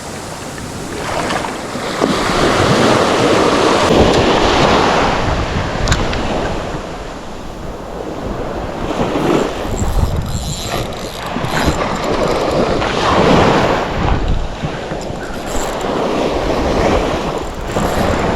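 Wind buffeting the microphone over splashing sea water, swelling and easing every few seconds.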